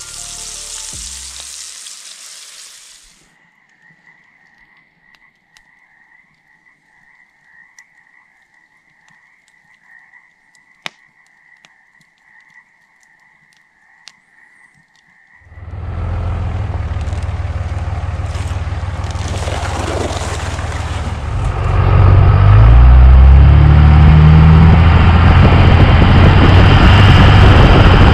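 Patties sizzling briefly in a cast-iron skillet over a campfire, then a faint, steady trilling chorus of frogs with a few soft fire crackles. About halfway through, a loud Ram pickup truck driving a dirt forest road takes over: engine, tyre and wind noise, growing louder a few seconds later.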